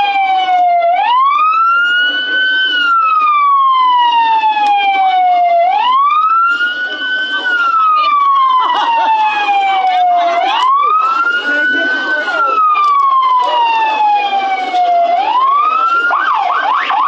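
Emergency vehicle siren sounding a slow wail: each cycle rises quickly, then falls slowly, repeating about every five seconds. It switches to a fast yelp near the end.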